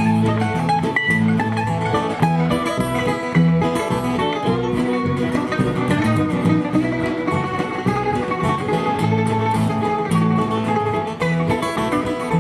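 Live band playing an instrumental break with no singing, plucked guitar to the fore over a moving bass line.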